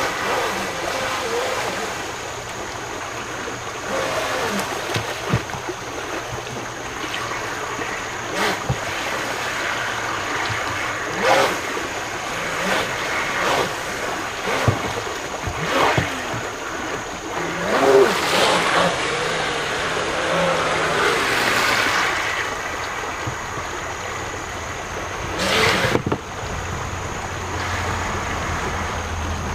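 Creek water rushing over a shallow rocky riffle, with a small RC jet boat running through it: its 540 electric motor and 28 mm jet drive whining, and a few louder surges as it pushes through the rapids.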